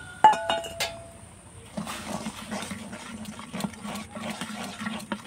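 A metal utensil clinks and rings against a kadai as a cup of semolina is tipped into heating milk and water. About two seconds in, a steady low rough sound with many small ticks starts as the semolina is stirred in the pan.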